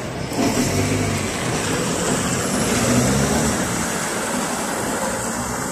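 GAZelle Next minibus with an Evotech 2.7 engine running on liquefied petroleum gas, pulling away close by. The engine note swells about half a second in, then slowly fades as the minibus drives off, over the hum of city traffic.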